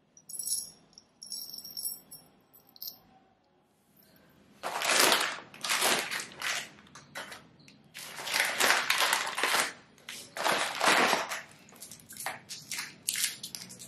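Plastic and foil sweet packets crinkling as they are picked up and handled, in repeated loud bursts starting about four and a half seconds in.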